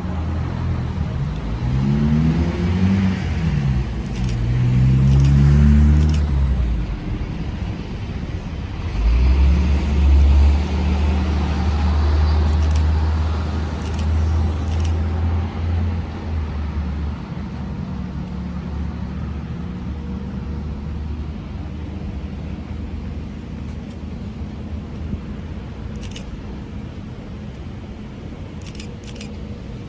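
Road traffic: motor vehicle engines passing close by, their pitch rising as they accelerate in the first few seconds. A heavy low rumble follows from about nine seconds in, then it settles to a steadier, quieter hum with a few light clicks.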